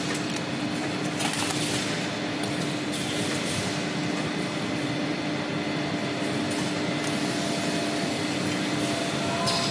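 Steady running noise of an automated A4 paper sheeting and carton-packing line: roller conveyors and machinery with a constant hum, and a few brief hissing surges.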